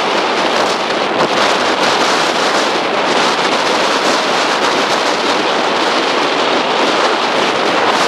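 Strong wind buffeting the microphone over the steady rush of breaking surf.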